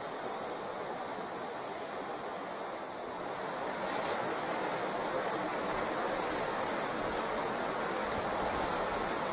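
River rapids rushing steadily over rocks. The rush grows a little louder about three and a half seconds in.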